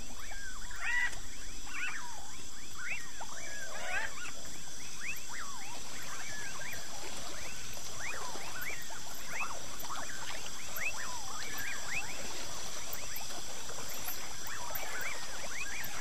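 Many short, squeaky animal calls, each rising and falling in pitch, overlapping one another, over a steady high-pitched drone.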